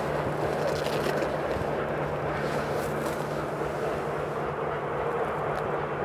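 Steady distant rumble of a freight train running away down the line, with a constant low hum underneath. It fades very slightly as the train recedes.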